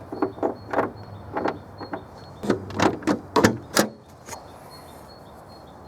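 A run of short plastic-and-metal clicks and taps from a Mercedes-Benz star hood emblem being pushed into its mounting hole in the hood, about a dozen in the first four seconds, the loudest near the middle. After that, only a faint steady hiss is left.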